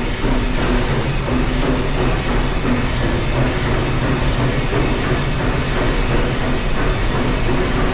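Narrow-gauge steam train of the Walt Disney World Railroad running along the track, heard from aboard a passenger car: a steady rumble of wheels on rails.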